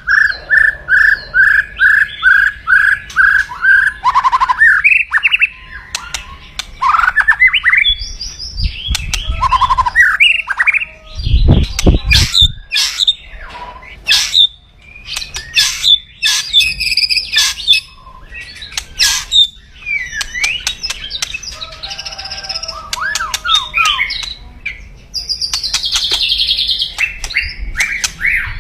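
White-rumped shama (murai batu) giving its loud, aggressive kretekan calls: a quick run of repeated notes, then a jumble of varied chirps and crackling rattles. A loud low thump comes about twelve seconds in.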